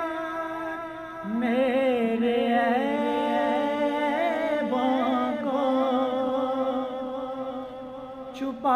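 A man's voice singing an unaccompanied naat, with long held notes that waver, layered with humming. A new phrase comes in about a second in, and there is a short break near the end before the next one.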